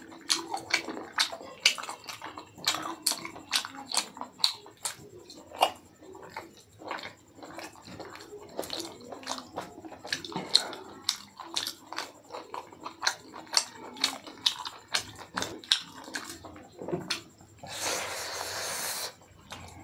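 Close-miked wet chewing and lip-smacking of a man eating pork curry and rice by hand, with many sharp smacks and clicks. A noisy rush lasting about a second comes near the end.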